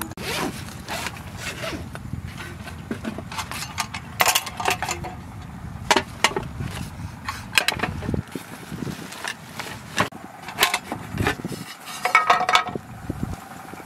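Metal mess tins knocking and clinking as they are handled and set down on a bamboo table, with bag rustling between the clinks. The knocks come irregularly, several of them ringing briefly.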